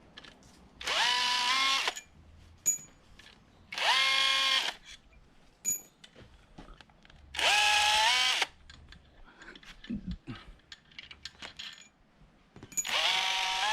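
Power drill-driver run in four short bursts of about a second each, its motor whine rising quickly and then holding steady, as bolts are spun out of an engine block during teardown. Light clicks and clatter of tools and parts between the bursts.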